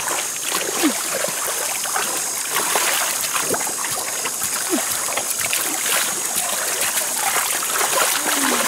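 Shallow muddy water sloshing and splashing as a hoe blade and hands scrape and stir wet mud, with an ongoing trickle of water and many small irregular wet clicks.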